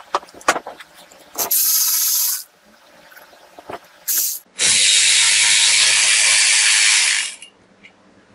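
Handheld power ratchet running in two bursts, a short one and then a longer one of nearly three seconds, with a whirring hiss. It is backing out the bolts that hold the muffler and air cleaner base on a mower engine. A few sharp tool-handling clicks come first.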